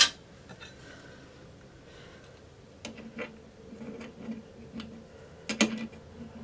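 Small plumbing adapter fittings being handled and tried on a toilet supply connector: a couple of light clicks about three seconds in, then a sharper click and clatter near the end.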